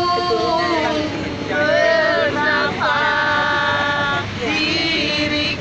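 Voices singing a song, with bending phrases and a long held note a few seconds in.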